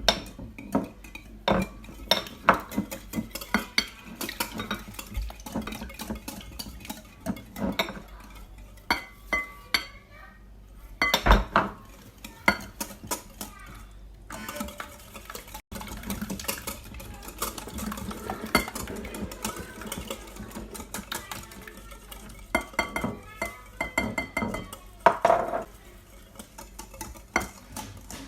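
Rapid, continual clinking of a utensil beating against a mixing bowl as eggs and sugar are whisked together by hand, with a louder knock about eleven seconds in.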